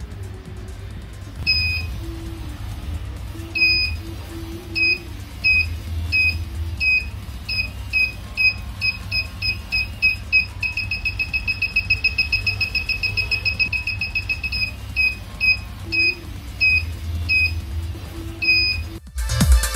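Small electronic buzzer on an ultrasonic obstacle-detection glove beeping at a high pitch. The beeps come faster and faster to a rapid string of about five or six a second midway, then space out again: a warning that an obstacle is close ahead.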